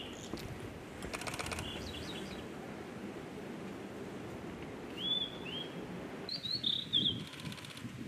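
Blue-and-white flycatcher singing: short clear whistled phrases of falling notes near the start, about five seconds in, and a quick run of notes near seven seconds, with a short rattle about a second in, over steady low background noise.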